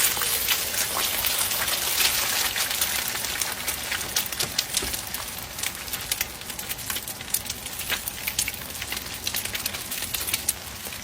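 Eggs frying in hot oil in a pan, sizzling with many small crackling pops; loudest at first, then slowly dying down.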